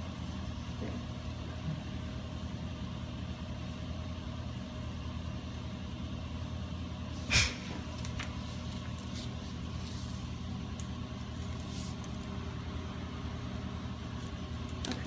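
A steady low mechanical hum, with a single sharp knock about halfway through.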